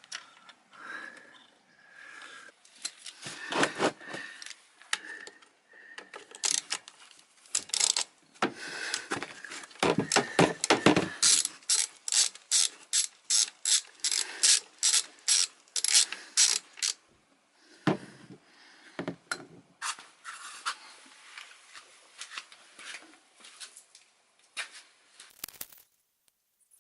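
Ratchet wrench clicking in runs of strokes as a plug is worked loose during an oil change, with a long regular run of about three clicks a second midway, then fewer, sparser clicks.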